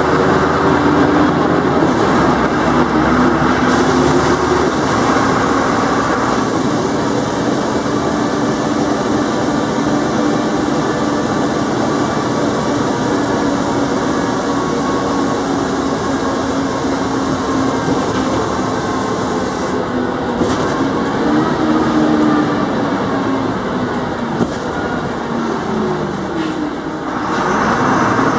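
Jelcz 120MM/2 city bus under way, heard from inside the passenger saloon: the diesel engine and ZF automatic gearbox running with a steady whine over road and body noise. The whine rises in pitch about twenty seconds in, and falls and climbs again near the end.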